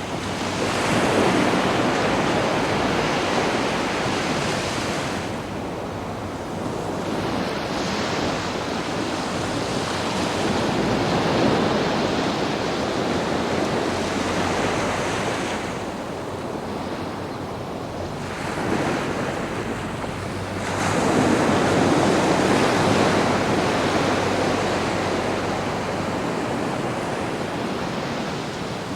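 Sea waves breaking and washing up the beach, the surf swelling in three long surges about ten seconds apart.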